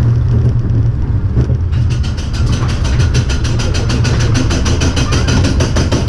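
Wacky Worm roller coaster train running on its steel track, heard from on board: a steady low rumble, joined about two seconds in by regular clicking at about four to five a second.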